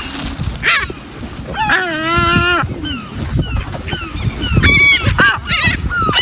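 A flock of birds calling as they are hand-fed: many short, overlapping calls and one longer drawn-out call about two seconds in.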